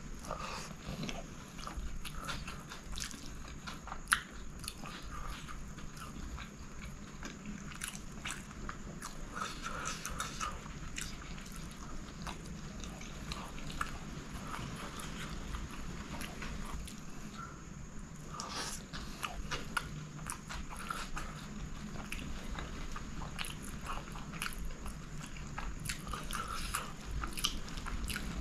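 Close-miked chewing and biting of a man eating chicken kottu roti by hand, with frequent small mouth clicks throughout. A single sharp click about four seconds in is the loudest sound.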